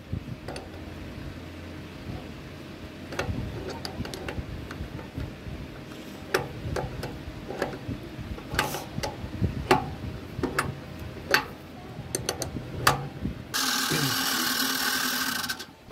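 Scattered metallic clicks and taps of a spanner working the pressure bolt on an agarbatti making machine, over a low steady hum. Near the end a loud steady rushing noise runs for about two seconds and cuts off suddenly.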